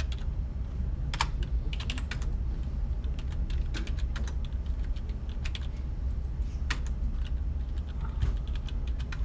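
Computer keyboard keys clicking in short bursts of a few strokes each, as numbers such as 3.6 and 4.5 are typed in and entered, over a steady low hum.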